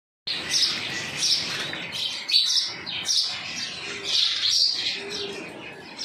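Birds chirping in a steady string of quick, high chirps, about two a second, with a couple of faint low coos in the second half.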